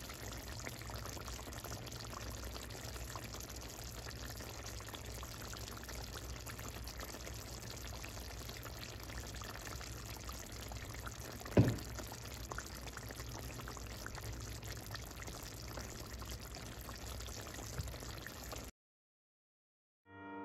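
Tomato-based eddoes curry simmering in a steel pot, a steady bubbling over a low hum. A single sharp knock sounds about halfway through, and everything cuts out near the end.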